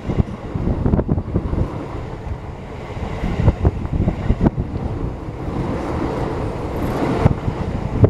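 Keio Line electric commuter train passing at close range: a steady rumble and rush of wheels on rail, with irregular knocks as the wheels run over the rail joints. Wind buffets the microphone.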